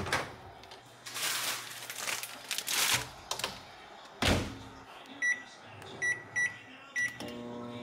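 Samsung microwave oven being loaded and started: rustling handling, the door shutting with a knock about four seconds in, then several short keypad beeps, and near the end the oven starts running with a steady hum.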